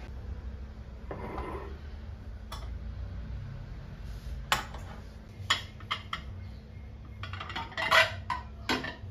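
Ceramic plates and bowls clinking and clattering as they are lifted out of a kitchen cupboard and stacked on the counter: a string of sharp knocks, the loudest cluster near the end, over a steady low hum.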